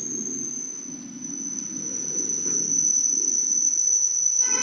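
A steady high-pitched whine over a low background rumble, with a brief pitched tone sounding right at the end.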